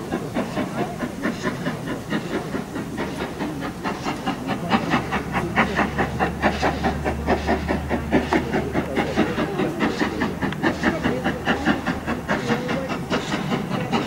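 Steam locomotive approaching under power, its exhaust beating in a steady rapid rhythm over a constant hiss of steam, growing a little louder as it nears.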